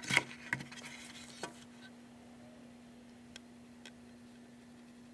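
Small paint bottles and a sponge being handled on a tabletop: a sharp click right at the start, two more taps within the first second and a half, then a couple of faint ticks. A steady low hum runs underneath.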